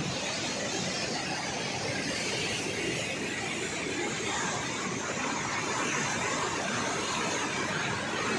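Fast, swollen mountain river rushing through rapids over boulders: a steady, unbroken roar of whitewater.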